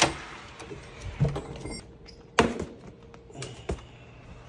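Metal door lever and latch clicking as a door is opened, then a few separate sharp knocks and thuds from handling a cardboard parcel, over a faint steady hum.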